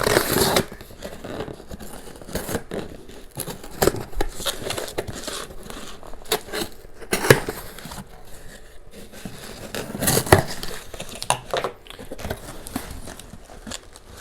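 Bubble wrap and plastic packaging crinkling and rustling as a battery package is unwrapped by hand, with irregular sharp crackles and handling clicks.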